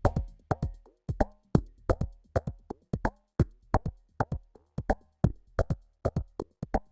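Electronic drum-machine percussion loop: short, knocking pitched hits about two or three a second over a low bass, played through a mastering limiter set to slow limiting.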